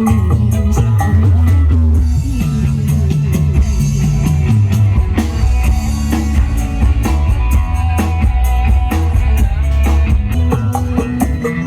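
Music with drum kit and guitar played loud through Rimba Audio's sound system in a mixing test, with heavy bass.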